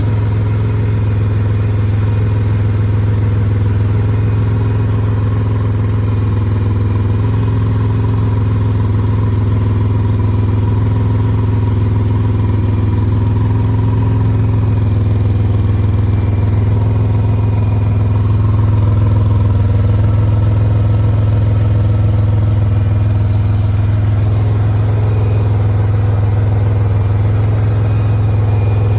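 2005 Pontiac Grand Prix GTP's supercharged 3.8-litre V6 idling steadily. The car has an exhaust leak that the owner needs fixed.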